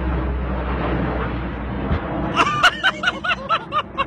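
Low, steady drone of a transport aircraft's engines with wind noise, a single dull thump about halfway through, then a man laughing in a quick run of short ha-ha pulses.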